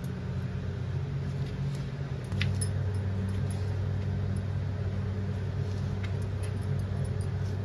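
Kitchen knife cutting tomatoes on a plastic cutting board, with a few faint taps of the blade on the board. Under it runs a steady low hum that gets a little louder about two and a half seconds in.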